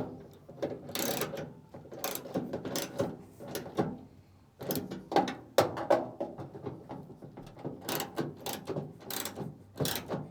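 A metal mechanism ratcheting and clicking in uneven bursts, stopping briefly a couple of times.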